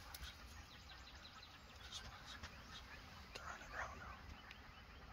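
A faint, distant wild turkey gobble, once, about three and a half seconds in, over a quiet outdoor background with faint bird chirps.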